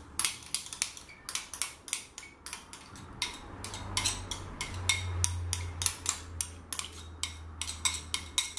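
A small spatula scraping and tapping against the inside of a glass mug, a fast run of sharp clicks about four or five a second, as thick egg-cream sauce is scraped out of the mug onto potatoes.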